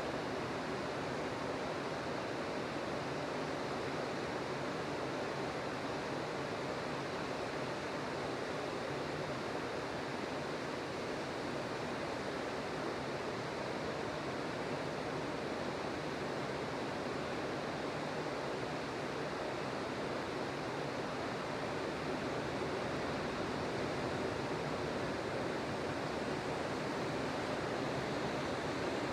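Ocean surf breaking on a beach: a steady, even wash of waves with no single break standing out.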